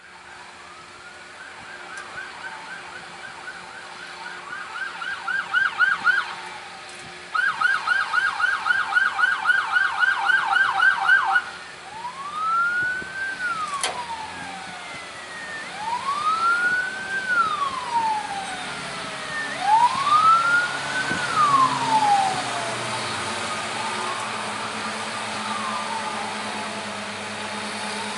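Ambulance siren: a rapid yelp for about the first eleven seconds, then a slow wail rising and falling about every four seconds, fading over the second half. A heavy vehicle's engine runs steadily underneath, most plainly near the end.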